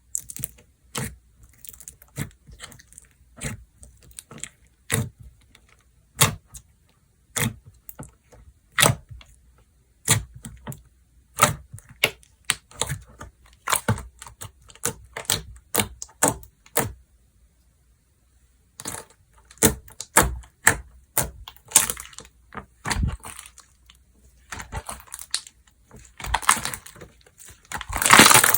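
Slime being played with by hand: a run of sharp, sticky clicks and pops, a pause of about two seconds past the middle, then denser crackling near the end.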